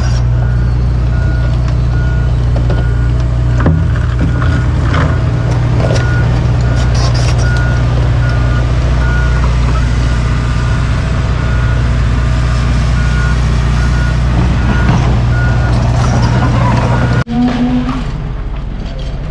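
A heavy diesel machine runs steadily while its reversing alarm sounds a repeating high beep. Near the end the sound cuts off abruptly and a quieter engine continues.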